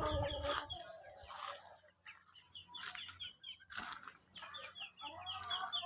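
Chickens, with chicks peeping in quick runs of short, high, falling chirps.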